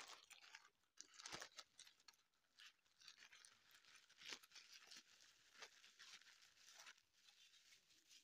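Faint rustling and crinkling of a plastic courier bag and bubble wrap being handled and pulled open, with scattered small crackles.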